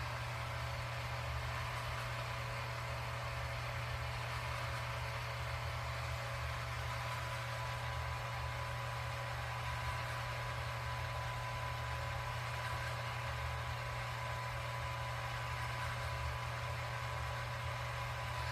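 Robot vacuum running: a steady motor hum with a constant thin whine and even hiss, unchanging throughout.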